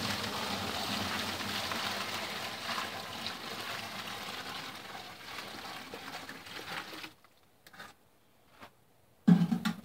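Hot water with melted beeswax and dead wax moth larvae poured steadily from a metal bucket through a screen into another bucket. The screen catches the larvae and debris. The pour runs for about seven seconds and then tails off, and a brief loud sound comes near the end.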